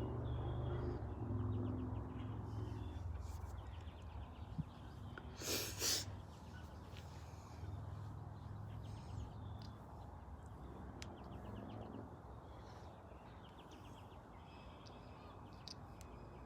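Quiet outdoor ambience with short bird trills now and then and a low distant rumble fading after the first few seconds. One short breathy burst comes about five and a half seconds in.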